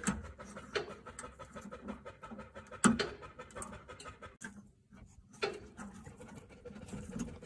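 Small scratching and clicking of hands twisting a BMW Z4's low-beam headlight bulb holder loose in its housing, with one sharp click about three seconds in.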